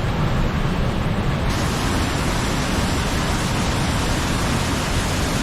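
Waterfall in high flow after heavy rain: a loud, steady rush of falling water.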